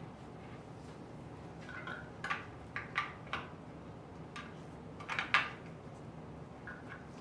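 Scattered light metallic clicks and ticks from a bicycle wheel in a truing stand, in a few irregular clusters, loudest about five seconds in.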